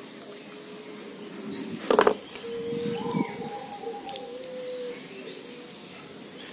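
Doves cooing in the background, low drawn-out notes repeated through the clip. A single sharp knock about two seconds in, then a few faint small clicks.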